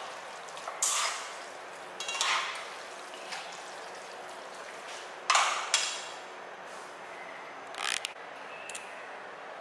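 Metal fork and tongs stirring and lifting saucy spaghetti in a nonstick frying pan: a handful of short scrapes and clinks of the utensils against the pan, with quieter gaps between.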